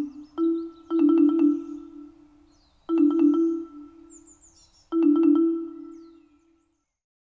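Marimba-like mallet music in four short phrases of quickly repeated struck notes, each ringing out and fading, with faint high chirping above. It stops about six and a half seconds in, into silence.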